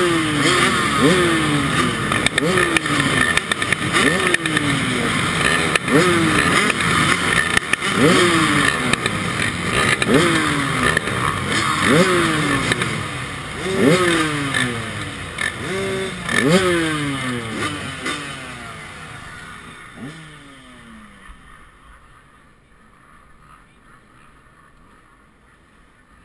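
Dirt bike engines idling at a race start line, one throttle blipped in quick revs that rise sharply and fall away, every second or so. The engine noise dies down over the last several seconds.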